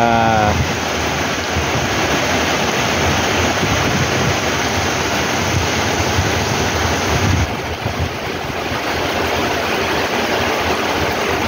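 Heavy rain pouring down onto a paved street, a steady hiss of falling water that turns a little duller about seven and a half seconds in.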